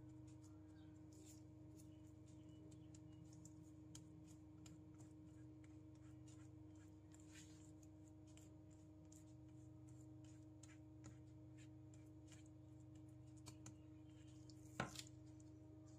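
Faint scraping and light ticking of a silicone spatula pressing sesame seeds into a metal cookie cutter on a silicone baking mat, over a steady low hum, with one sharper click near the end.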